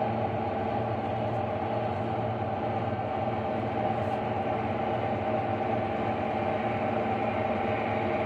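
Tractor engine running steadily under load, a constant drone with a steady hum, heard from inside the cab.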